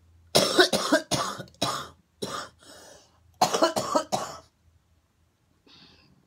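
A woman coughing hard in two bouts of several harsh coughs each, with a single cough between them.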